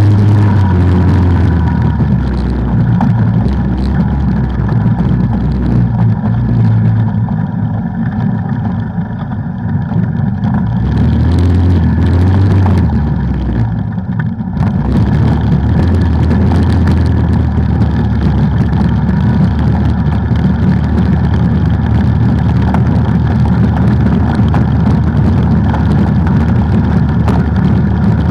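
Off-road vehicle's engine running loudly while riding a trail, its pitch rising and falling with the throttle and easing off briefly twice.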